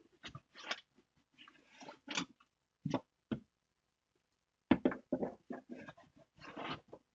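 Irregular handling noises: short knocks, taps and rustles, sparse at first and busier in the last couple of seconds.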